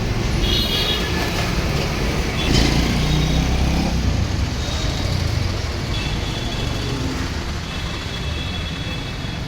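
Steady low rumble of a running vehicle engine under outdoor background noise, with a brief louder knock about two and a half seconds in and faint high-pitched whistling tones at times.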